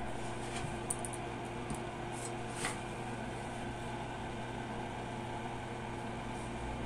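Steady electrical hum and hiss from a small amplifier's speaker, switched on abruptly just before, with a few faint clicks in the first three seconds.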